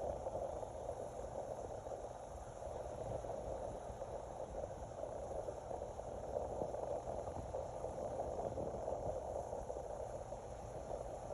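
Cessna Citation Latitude's twin turbofan engines heard from afar, a steady, faint hiss and low rumble.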